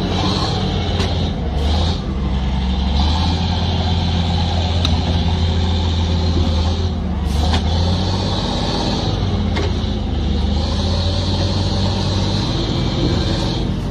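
Heavy vehicle's engine running loud and steady, with a constant hiss above the engine note.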